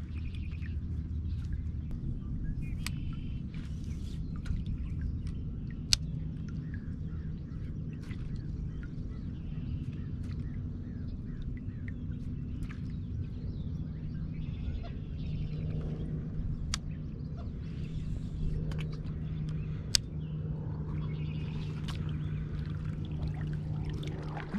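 Kayak being paddled: a sharp knock now and then, as the paddle strikes the plastic hull, over a low steady hum, with faint bird chirps.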